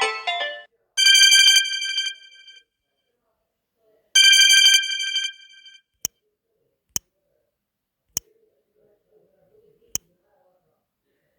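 Samsung Galaxy A20 phone ringtone: a bright bell-like ring sounds twice, about three seconds apart, each one fading out, after the last notes of a chiming melody. Four short sharp clicks follow.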